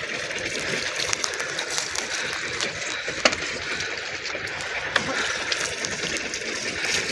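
Sea water splashing and washing against a small outrigger fishing boat, a steady rushing noise with a few sharp clicks, the clearest about three seconds in.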